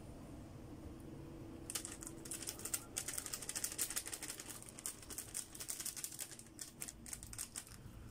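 A paper spice sachet rustling and crinkling in the hand as ground coriander is shaken out of it. It makes a quick, uneven patter of small crackles that starts about two seconds in.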